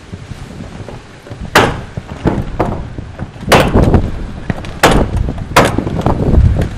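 Nail gun firing nails into OSB roof sheathing: four loud, sharp shots, irregularly spaced, with lighter knocks between them. Wind rumbles on the microphone underneath.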